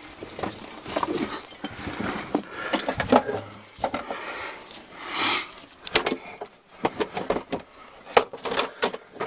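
Loose bricks and rubble clattering as someone clambers over them in a small cellar space: irregular knocks and clinks of brick on brick.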